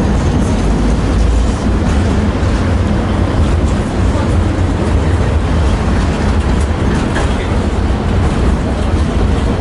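Tatra T6B5SU tram running along the track, heard from inside the car: a steady low rumble of wheels on rails with a few faint clicks.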